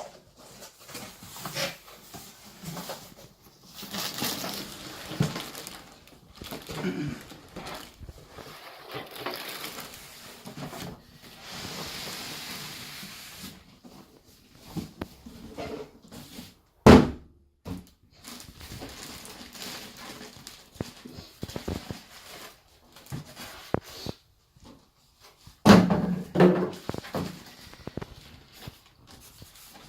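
A PC case being unboxed: cardboard box and packaging rustling, sliding and scraping as they are handled. There is one sharp knock about halfway through, the loudest sound, and a cluster of thumps a few seconds before the end.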